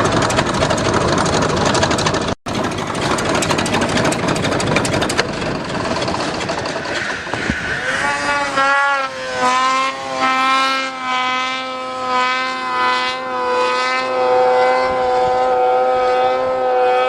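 Snowmobile engine running at high revs. The first half is a rough, noisy rush, briefly cut off about two and a half seconds in. The second half settles into a steady high-pitched drone that steps in pitch a few times.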